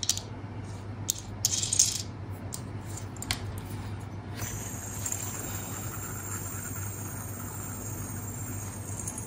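Metal clicks and clinks as the parts of a metal fidget spinner are handled and fitted together, then, about four seconds in, a steady high whir as the spinner spins on its bearing.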